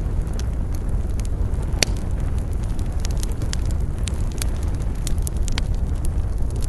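Bonfire burning: a steady low rumble with frequent sharp crackles and pops, one louder pop about two seconds in.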